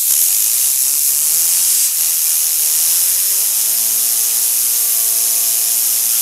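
Loud, steady hiss of compressed air from an air-compressor blow gun driving a fidget spinner. Through the hiss the spinner's whirring hum, which he likens to a motorcycle, rises in pitch from about a second in as it spins up, then holds steady.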